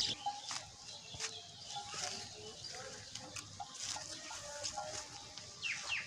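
Birds chirping and calling, with short scattered notes and a couple of quick falling calls near the end. A few light clicks and rustles sit underneath.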